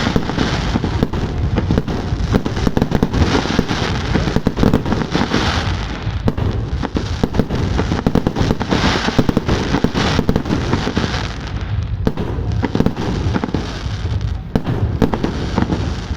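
Fireworks display: a dense, continuous barrage of many bangs and crackles, shells going off in quick succession without a break.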